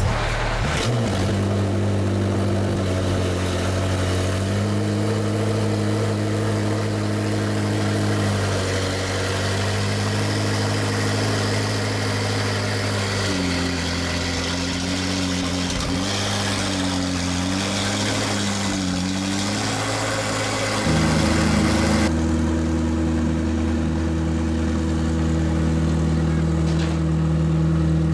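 McLaren P1 GTR's twin-turbo V8 catching about a second in and settling into idle. The idle pitch wavers and dips several times in the middle, then steps to a different steady note about three-quarters of the way through.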